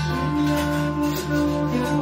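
Live improvised band music: a low note pulsing steadily under several held tones, with new held notes coming in at the start.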